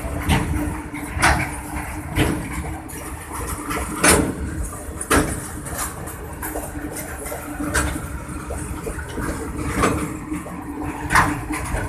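Goods train running: a low rumble with a steady hum, broken by sharp metallic clanks every one to two seconds at uneven intervals.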